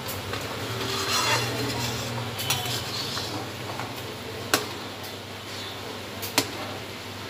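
A spoon stirring thick, frothy kadhi in a kadai, scraping through the curry and knocking sharply against the pan a few times, loudest twice in the second half. A low steady hum runs underneath.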